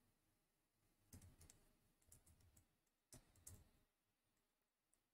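Near silence broken by three faint clusters of clicks about a second apart, from a computer keyboard and mouse in use.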